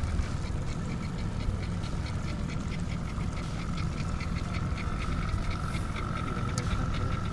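Spinning reel being cranked, ticking quickly and evenly, about five ticks a second, over a steady low engine hum with a thin high whine.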